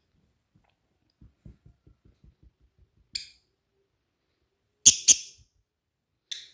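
Cockatiel giving short, sharp chirps: one, then a louder pair about five seconds in, then one more near the end. Before them come soft light taps.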